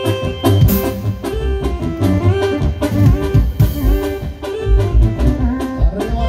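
Live band playing a loud dance tune through the stage PA: electronic keyboard, horns, bass and drums, with a steady beat.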